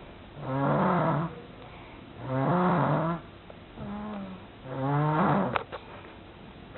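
A sick pet snoring very loudly: three loud rasping snores about two seconds apart, with fainter breaths between them. A few sharp clicks come near the end.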